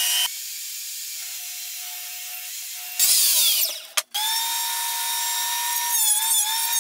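A run of woodworking machines in quick succession. First a thickness planer runs steadily, then a loud saw cut ends with the blade winding down in pitch. After that a Grizzly benchtop jointer's motor whines steadily, its pitch dipping briefly near the end as a board is pushed across the cutterhead.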